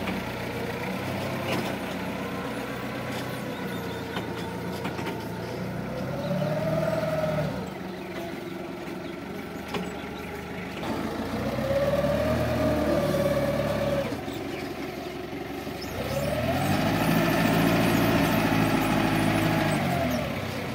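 Forklift engine running, revving up and back down three times, the longest rev near the end as the mast lifts a pallet load. Each rev carries a whine that rises and falls with it.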